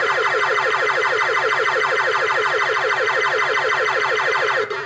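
Bellfruit SILVAREELS fruit-machine board's AY sound chip playing an electronic sound effect: a rapid, even string of repeating chirps, about eight a second, over a steady low buzz. It cuts off suddenly near the end.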